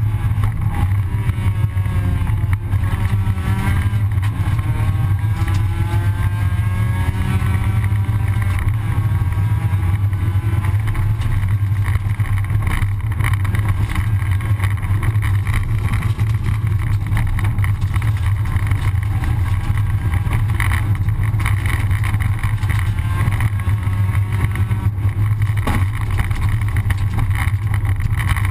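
Rally car engine heard from inside the cabin at speed, its revs rising and falling over steady road and gravel noise.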